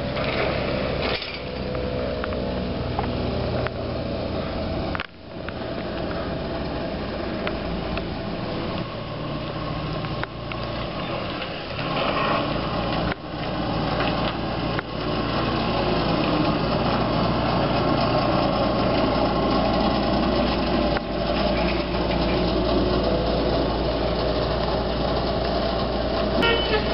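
M-A-N articulated electric trolleybus driving slowly around a loop: steady running noise with a low hum, breaking off suddenly and briefly a few times.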